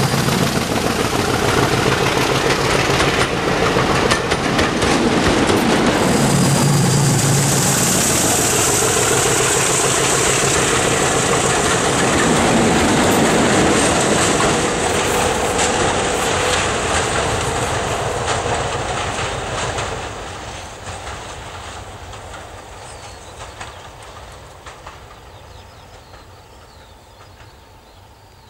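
A diesel-hauled passenger train's coaches clatter past at speed, their wheels clicking over the rail joints. The tail of the train, with a second diesel locomotive at the rear, goes by about halfway through, and the sound then fades steadily as the train pulls away into the distance.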